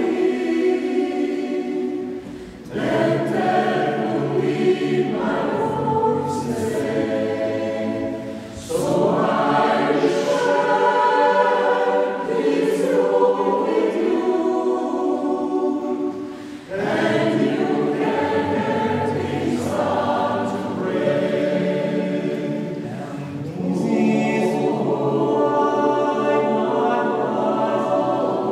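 Mixed choir of men and women singing a cappella, holding sustained chords in long phrases, with brief breaks for breath every six to eight seconds.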